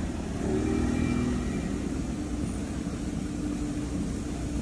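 Steady vehicle engine hum over a low rumble of traffic noise.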